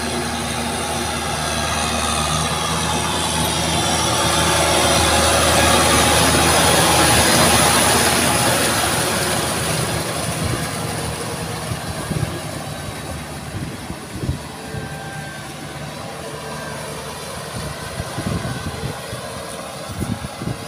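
Kubota tractor's diesel engine running steadily under load while pulling a rotary tiller through flooded paddy mud. It grows louder toward the middle, then eases off, with a few sharp knocks in the second half.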